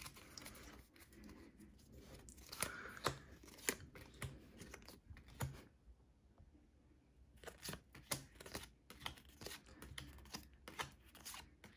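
Pokémon trading cards being flipped through by hand, one at a time: faint scattered clicks and rustles as the cards slide and snap against each other, with a quiet pause about halfway through.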